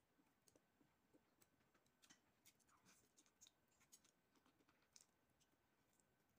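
Near silence with faint, scattered small clicks and ticks of eating: chopsticks working instant noodles in a bowl.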